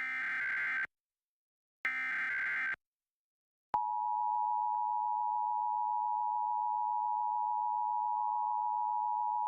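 Emergency Alert System test broadcast: two harsh, screechy SAME header data bursts of about a second each, a second apart, then the steady two-tone EAS attention signal (853 and 960 Hz together), which sounds from about 3.7 s in and holds through the rest.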